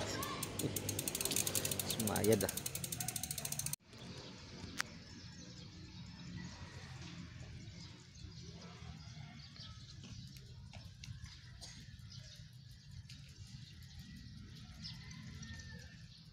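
Bicycle freewheel ticking rapidly as the bike coasts, with a brief scrape about two seconds in. After an abrupt cut a few seconds in, the sound drops to a quieter steady low hum with scattered faint ticks.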